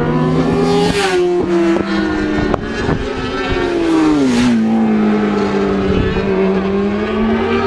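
TT race motorcycle engine, loud and high-revving. The note falls about four seconds in, then holds and climbs again.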